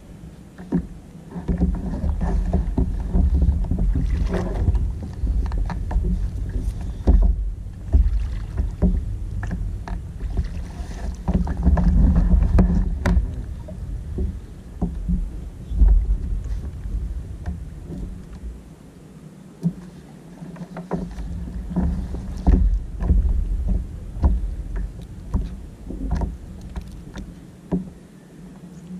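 Wind buffeting the microphone of a camera mounted on a sit-on-top kayak at sea, with water against the hull, gusting and easing off for a few seconds about two-thirds through. Scattered short clicks and knocks of gear being handled on the kayak come through over it.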